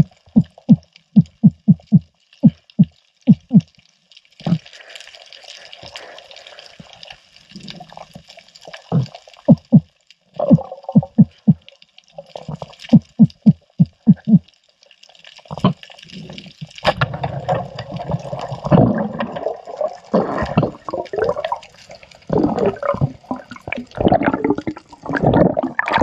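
Underwater sound from a freediving spearfisher's camera: runs of short, low thumps, about three or four a second, over a faint high hiss. In the last third a louder rush of water and bubbles takes over as the diver moves up.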